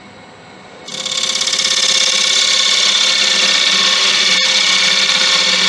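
Turning tool cutting into spalted beech spinning on a wood lathe: a loud, steady scraping hiss with a fast flutter that starts about a second in. A brief click partway through.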